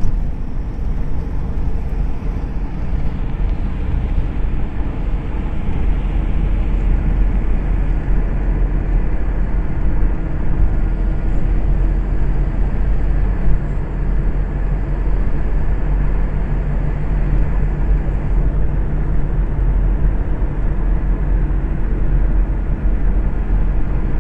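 Steady running noise of a vehicle on a highway: a continuous low rumble of engine and tyres with a faint steady hum.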